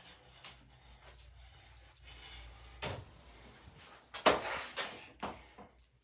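A parcel being handled and opened by hand: scattered clicks and knocks of packaging, with the loudest, a short rustle, about four seconds in.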